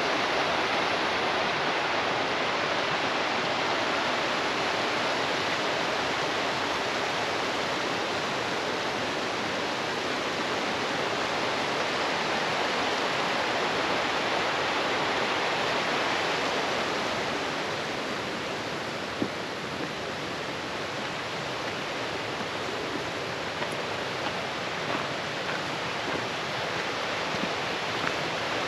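Steady rush of flowing water, like a fast mountain stream, a little quieter over the last third, with a few faint clicks near the end.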